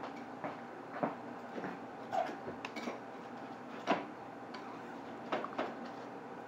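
Quiet room with scattered light knocks and clicks, several short taps spread through a few seconds.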